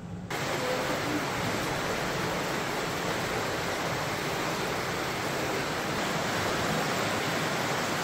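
Steady rushing of spring water in a cave, an even hiss that cuts in abruptly just after the start.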